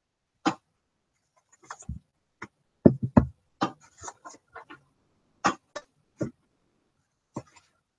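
An irregular string of sharp clicks and knocks, about fifteen in eight seconds, some with a dull thump: small objects being handled on a desk close to the microphone.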